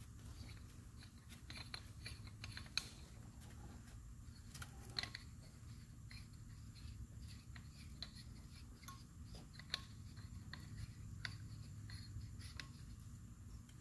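Faint, irregular small clicks and scrapes as the canister of a JLT 3.0 oil catch can is gripped by its bottom grips and unscrewed by hand, over a low steady hum.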